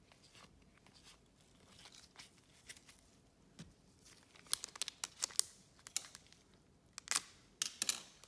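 Trading card pack wrapper being torn open and crinkled: faint rustling at first, then a run of sharp crackles from about halfway through.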